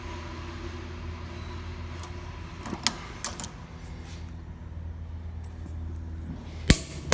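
DoAll bandsaw's blade butt welder humming steadily under power, with a few light clicks midway and two sharp, loud clacks near the end.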